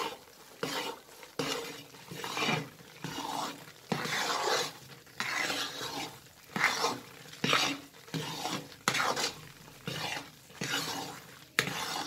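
Metal spatula stirring and scraping thick besan roasting in ghee in a metal kadhai, in repeated strokes a little more than one a second. The besan has begun to puff up and froth, a sign that it is about half roasted.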